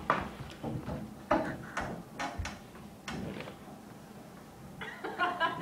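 A run of knocks and bumps on a white-framed stage platform as a man climbs onto it and hangs from its poles, with a voice coming in near the end.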